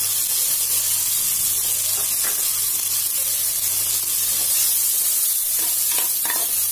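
Chopped onions sizzling steadily in hot oil and ghee in an aluminium pot as they are stirred with a steel ladle, with a few light scrapes of the ladle.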